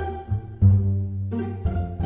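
Background music: playful plucked strings with a low bass line, notes changing every half second or so.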